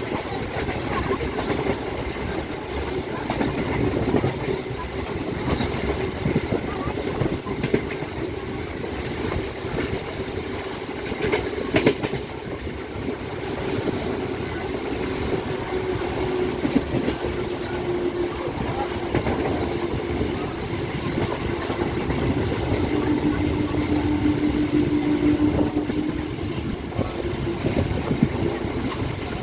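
Train running along the track: a steady rumble with a faint held tone and a few sharp knocks from the wheels over the rails.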